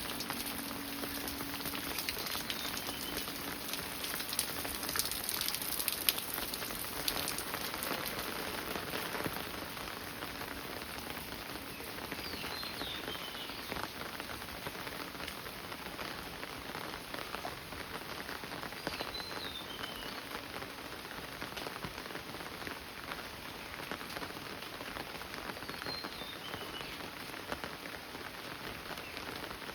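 Steady rain falling, a dense patter of drops. A short, high, falling call repeats four times, several seconds apart.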